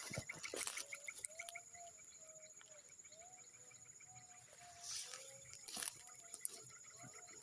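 An animal calling in a series of short whistled notes, about two a second, over a steady high-pitched hum. Brief rustling noises come near the start and again about five seconds in.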